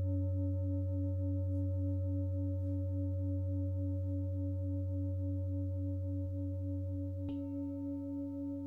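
A 32 cm five-metal singing bowl ringing with a deep hum and several higher overtones. One overtone pulses about four times a second, until a light knock about seven seconds in leaves it ringing steadily while the deep hum fades.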